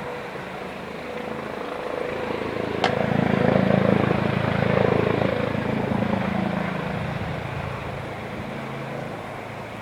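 Police helicopter rotor and engine noise that swells louder from about three to six seconds in, then eases off. A single sharp click sounds about three seconds in.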